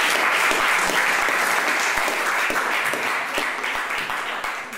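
Audience applauding at the end of a speech, a dense steady patter of many hands that slowly weakens and stops near the end.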